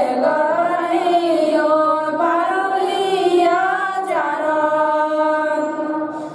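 Buddhist devotional chanting by voices singing together, a slow melody of long held notes that slide from one pitch to the next.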